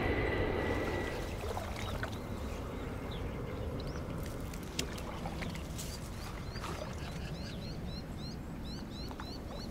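Water sloshing as a person wades in shallow water, with a small bird repeating short rising chirps through the second half.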